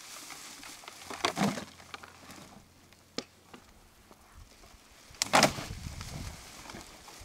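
Litter being gathered by hand on the shore: two short bursts of rustling and knocking, about a second in and again about five seconds in, with a single sharp click between them.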